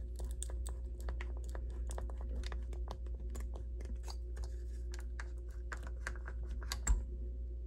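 Irregular small clicks and crackles of components and connectors being wiggled and pulled out of a desoldered circuit board, with one louder knock about seven seconds in, over a steady low hum.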